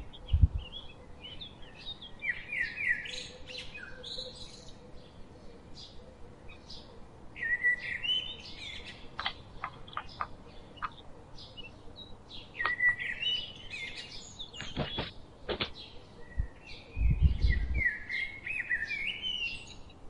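Small songbirds chirping over and over in the background. A few sharp taps come from a crow pecking at a walnut on a wooden board, and near the end there is a short burst of wingbeats as the crow flies up.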